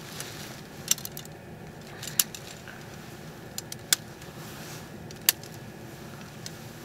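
Folding metal camp stand being unfolded and assembled by hand: a handful of sharp metallic clicks and clinks a second or so apart as the frame's parts are fitted together.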